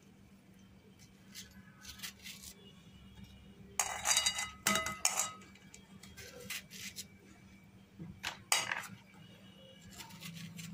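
Metal spoon scraping seeds from halved pointed gourds over a steel bowl: scattered short scrapes and clinks, the loudest about four to five seconds in and again at about eight and a half seconds, over a low steady hum.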